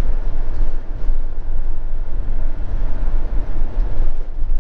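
Motorhome driving along a road, heard from inside the cab: a steady low engine and road rumble.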